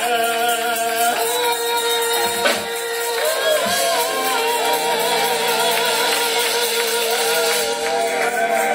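Live gospel song: a singer holds and bends long notes over steady instrumental accompaniment.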